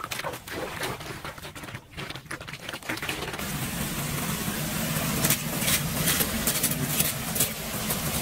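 Floodwater splashing and sloshing as a person works in it at the curb, then, from about three seconds in, a steadier rush of water draining through a metal storm-drain grate, with quick scratchy strokes of a bristle broom.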